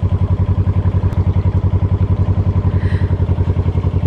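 Narrowboat's diesel engine running steadily under way, a fast, even chugging beat.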